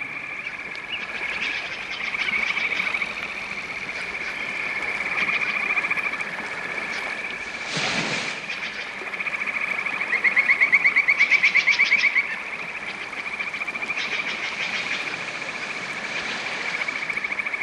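Chorus of frogs calling, a steady high trilling that goes on throughout, with one louder, rapid trill about ten seconds in. A brief rushing sound about eight seconds in.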